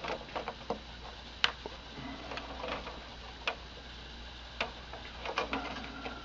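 Scattered light clicks and taps at irregular intervals, about a dozen, the sharpest about one and a half seconds in. It sounds like small hard parts being handled, with no motor running.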